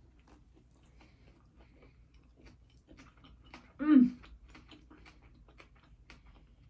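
Close-up chewing of a turkey and bacon sub, with many small wet mouth clicks. About four seconds in, a short vocal sound from the eater, falling in pitch, stands out above the chewing.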